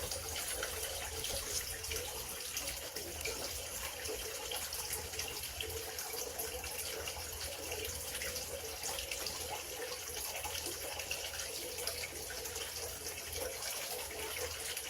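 Water running steadily with a fine crackle throughout.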